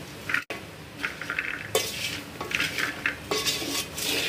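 A wooden spoon stirring raw chickpeas, sliced onion, tomato and dry spices in a metal cooking pot: irregular scrapes and rustles of the spoon against the pot and through the ingredients. There is a brief break about half a second in.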